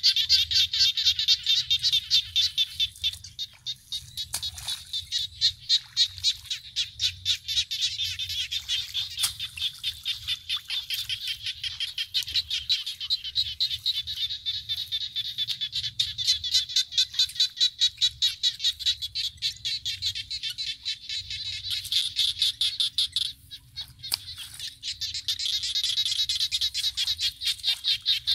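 A dense outdoor animal chorus of rapid, high-pitched pulsing calls from the flooded field, going on without let-up except for a brief break about four-fifths of the way through.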